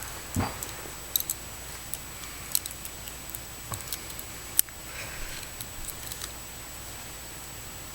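Handcuffs clicking and rattling in short, scattered taps as they are worked at, with one sharper click about four and a half seconds in.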